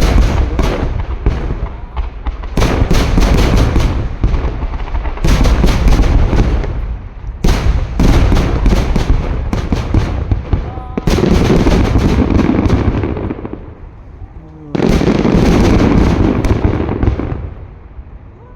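Aerial fireworks display: rapid volleys of firework bangs and crackling shell bursts follow one another without a break. Two heavy salvos start suddenly, about eleven and fifteen seconds in, each followed by a dense rumbling run of bursts.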